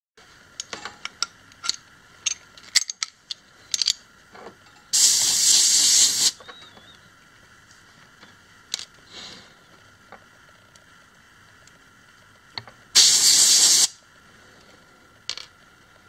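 Compressed-air blow gun fitted with a luer-lock needle adapter, let off in two short blasts of hissing air about a second each, some eight seconds apart. Before and between the blasts come small clicks and knocks of the gun and needle fittings being handled.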